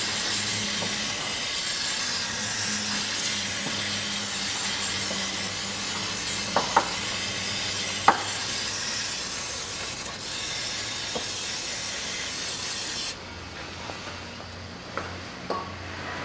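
Aerosol cleaner spray can hissing in one long continuous spray as it washes down engine-bay parts, with a few sharp clicks partway through; the spray cuts off abruptly about 13 seconds in.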